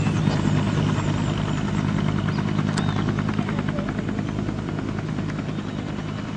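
Bell UH-1 Huey-type police helicopter in flight, its two-bladed rotor and turbine making a steady beating drone that fades gradually as it moves off.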